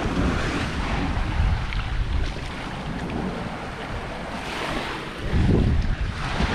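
Wind buffeting the microphone over rushing, splashing sea water, with a louder surge about five seconds in.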